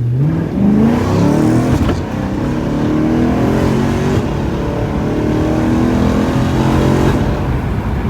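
BMW M3's S65 V8 under acceleration through a catless X-pipe with resonators and the stock mufflers, pulling up through the gears: the engine note climbs, drops at upshifts about 2 and 4 seconds in, then pulls steadily. Louder than the stock exhaust.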